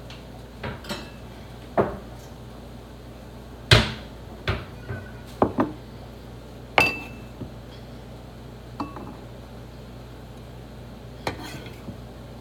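Irregular knocks of a chef's knife on a wooden cutting board as vegetables are cut and moved about, with a few light metallic clinks. The loudest knock comes a little under four seconds in.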